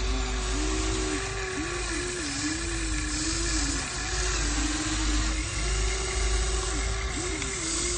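Small electric motors and gearboxes of a toy RC excavator whining, the pitch repeatedly dipping and rising as different functions start and stop, over a steady low rumble.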